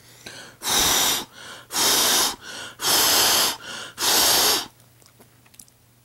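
A person blowing on hot food to cool it: four strong puffs of breath about a second apart, with weaker breaths between them.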